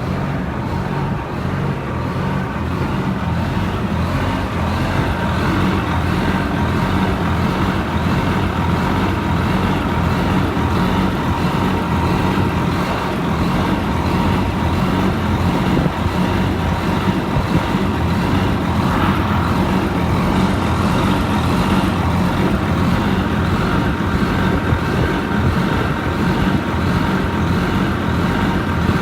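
Cummins QSM11 inline-six diesel engine of a reach stacker running steadily, with a steady whine over it and a higher whine that comes in about two-thirds of the way through.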